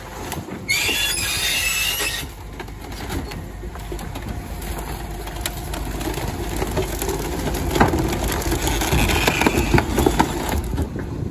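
Rear-loader garbage compactor truck running at the kerb, with a loud hiss about a second in, then a steady mechanical drone with a squeal as bulky rubbish clatters and cracks in the hopper.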